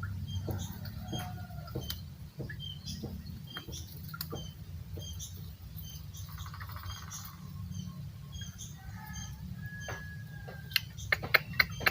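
A puter dove (local domestic turtle dove) calling, with low cooing under many short high chirps. Near the end comes a quick run of loud, sharp clicks.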